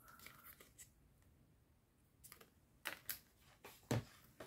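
Faint handling sounds of a plastic-packaged cutting die: soft rustles, then a handful of separate light clicks and taps as it is laid on a stack of other packaged dies.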